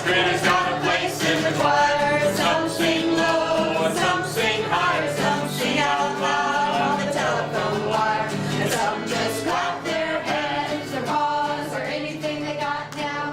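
A group singing together with instrumental accompaniment, cutting off abruptly near the end.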